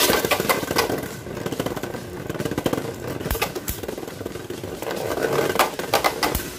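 Two Beyblade Burst spinning tops whirring and grinding on a plastic stadium floor, with sharp clicks as they hit each other and the stadium wall. The rattle is loudest right after launch and again about five to six seconds in.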